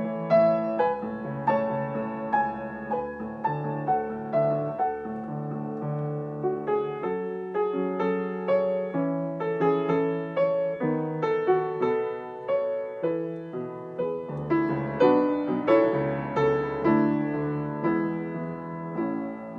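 Solo piano playing a majestic-style piece: a melody over regularly repeated chords in the lower register.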